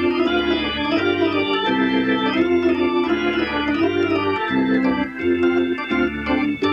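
Organ music: a wavering melody over held chords and a bass line that changes note about every half second.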